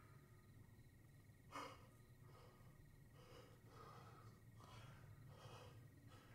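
Faint heavy breathing of a man: short breaths starting about a second and a half in and coming roughly every three-quarters of a second, over a low steady hum.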